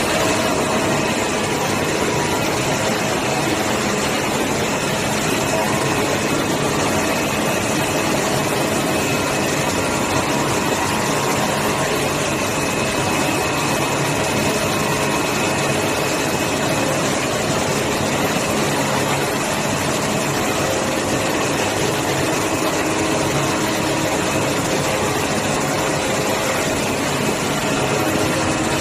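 Multi-layer fabric CNC cutting machine running: a steady, even machine noise with faint hum tones, with no breaks or changes.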